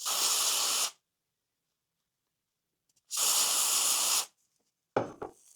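Aerosol contact cleaner sprayed in two bursts of about a second each, the second a little longer, cleaning sticky grease off a model locomotive's double gear. A short knock near the end.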